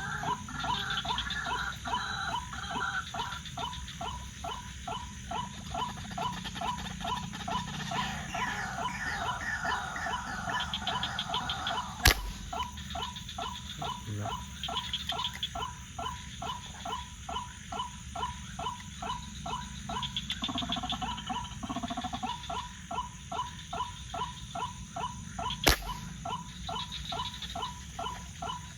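Night-time animal chorus: a frog or bird calls in a steady rhythm of about three notes a second over a constant high insect drone. Two sharp clicks break in, one about halfway through and one near the end.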